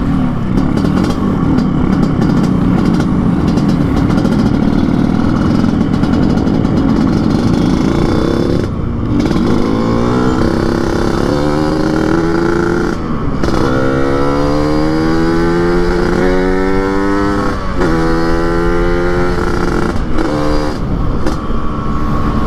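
Yamaha RX-King two-stroke single-cylinder motorcycle engine with a chrome underbelly exhaust and open air filter, tuned for the raspy 'ngorok' note, under way. It runs steadily at first; from about ten seconds in it accelerates through the gears, its pitch climbing and dropping back at each shift, several times over.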